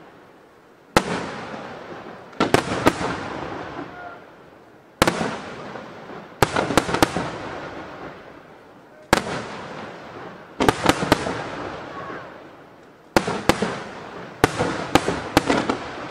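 Aerial firework shells bursting in repeated salvos: a single sharp bang, then a quick cluster of two or three more about a second and a half later, every four seconds or so. Each burst trails off in a fading crackle.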